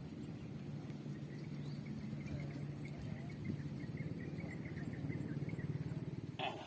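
Insects calling in a rapid run of short high chirps, about five a second, over a steady pulsing low hum. A brief sharp noise comes near the end.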